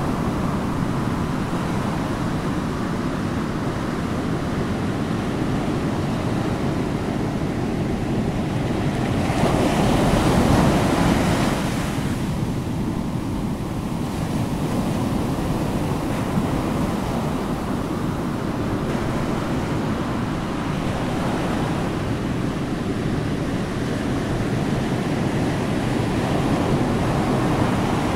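Ocean surf: a steady wash of waves, with one wave swelling louder about ten seconds in.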